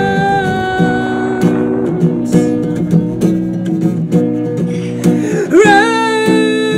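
Music: acoustic guitar strumming under a singing voice that holds long notes, sliding up to a higher note about five and a half seconds in.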